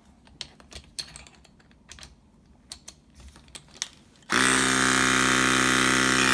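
A few light clicks of handling, then about two-thirds of the way in the Greenlee Gator EK628LX battery-powered hydraulic crimper's motor and pump start up and run steadily as the ram advances on a crimp cycle.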